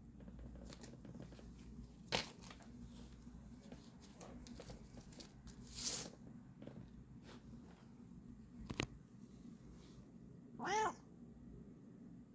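Bengal cat giving one short meow near the end, after a few scattered sharp clicks and a brief rustle.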